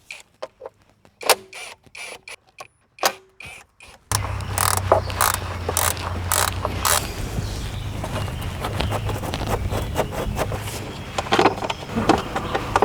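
Scattered metallic clicks and rattles of hand tools taking the fasteners off a riding lawn mower's cover panel. A steady low hum comes in about four seconds in, with the clicking going on over it.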